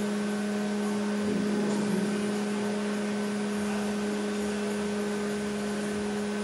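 Steady machine hum with a constant low drone and a higher tone above it, unchanging throughout.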